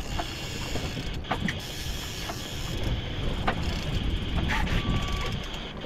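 Steady low rumble of a boat's outboard motor with wind noise, broken by a few sharp clicks and knocks and a brief squeak near the end.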